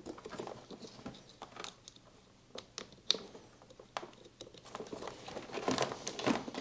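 Handling noise from hands working the heater unit's parts: irregular small clicks, taps and rustling, with one sharp click about three seconds in and a busier cluster near the end.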